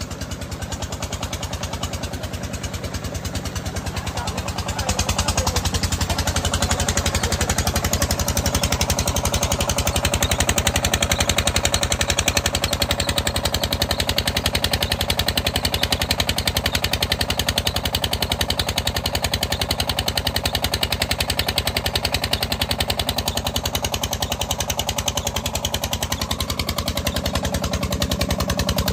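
Single-cylinder diesel engine of an 8 hp water pump set running steadily with a fast, even firing beat. It gets louder about five seconds in.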